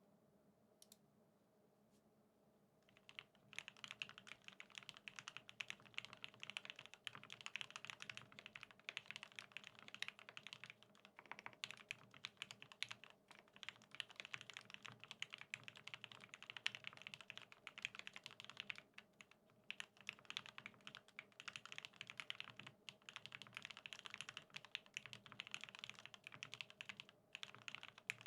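Steady fast typing on a custom BAEBAE TKL mechanical keyboard with Krytox-lubed OA switches on an aluminium plate, a dense run of quick keystrokes that starts about three seconds in and continues without a break.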